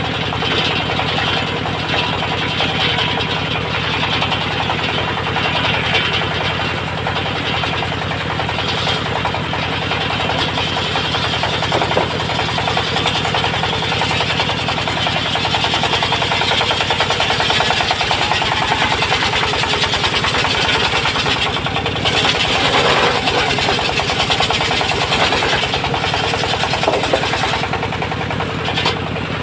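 Engine-driven circular sawmill running steadily, its engine pulsing rapidly and evenly under a broad, rough mechanical noise.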